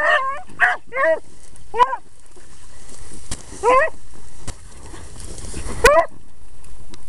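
Hunting beagles giving tongue while working a scent line: about six short, rising-and-falling bays at an uneven pace, four in the first two seconds, then one near the middle and one about six seconds in.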